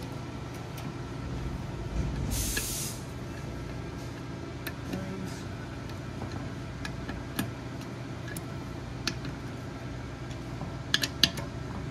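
Light metal clicks and taps as a small nut driver snugs the nuts on a billet petcock flange bolted to a motorcycle fuel tank, over a steady workshop hum. A short hiss comes about two and a half seconds in.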